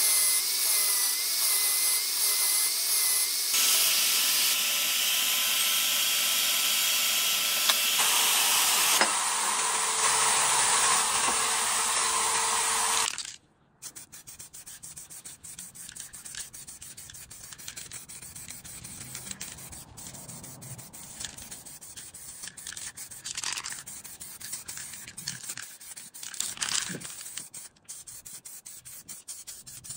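Metal parts of a dumbbell being worked during restoration. For the first half there is a loud, steady hiss. It stops abruptly, and after that comes quieter rubbing and sanding with scattered scrapes and clicks.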